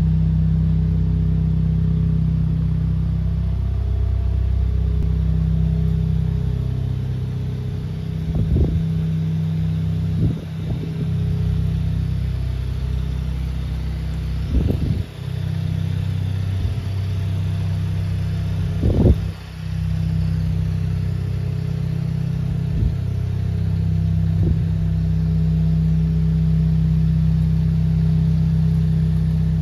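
2019 Audi S3's turbocharged 2.0-litre inline-four running at a steady idle through an AWE aftermarket exhaust, a low drone. About six brief sharp bursts break through it over the middle of the stretch, the loudest about two-thirds of the way in.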